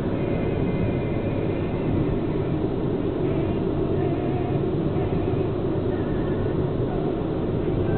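Steady road and engine noise inside a moving car's cabin, a constant low rumble.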